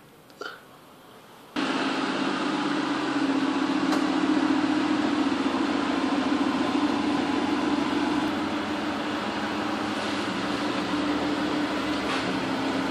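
Aston Martin DB9's V12 engine idling steadily through a custom stainless steel exhaust. The engine sound comes in abruptly about a second and a half in.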